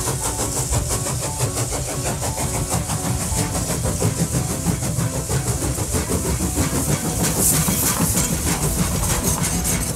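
Steam locomotive sound effect: a train chugging along with fast, rhythmic chuffs, hissing steam and a low rumble.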